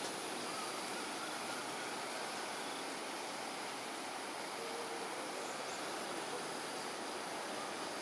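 Steady outdoor background noise: an even hiss with a constant high-pitched band and no distinct events.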